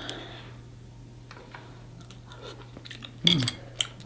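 Close-miked eating of snow crab: chewing, smacking and sharp clicks. A low hum runs underneath, and about three seconds in comes a short vocal sound that falls in pitch.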